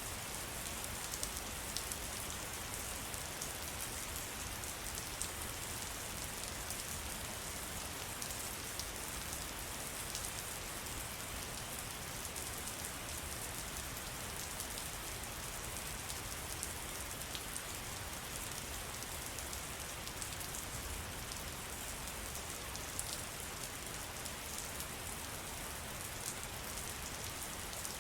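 Steady rain falling in a forest, an even hiss with many scattered small drop ticks.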